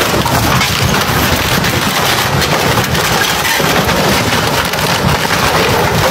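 Steady crackling and splintering as a large yacht's bow crushes a small wooden pontoon against a concrete quay, wood breaking and grinding under the hull.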